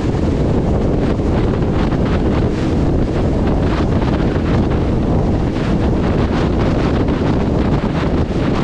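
Steady, loud wind noise buffeting the microphone of a motorcycle rider at highway speed, drowning out most other sound.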